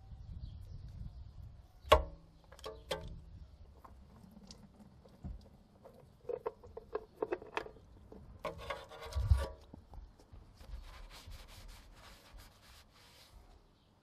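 Old spin-on oil filter being unscrewed by a gloved hand: rubbing and scraping of the canister against its mount, with scattered clicks and knocks of handling. The loudest knock comes about two seconds in, and a burst of scraping and knocks comes just past halfway.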